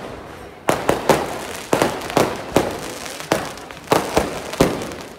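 Firecrackers bursting in a rapid, irregular series of sharp bangs, about a dozen of them, starting under a second in after a brief lull.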